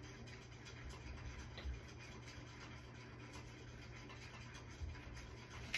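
Faint rustling and handling noises over a steady low room rumble.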